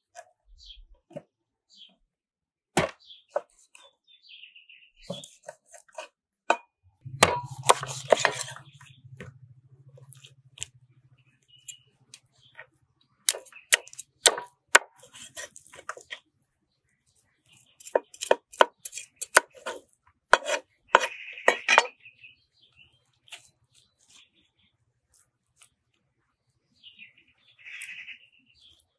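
Meat cleaver chopping through raw chicken and bone onto a wooden cutting board: sharp, irregular chops that come in clusters, with short pauses between.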